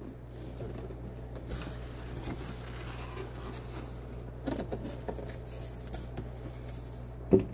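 Soft rustling and handling of a large cardboard box as its lid is lifted open, over a steady low hum.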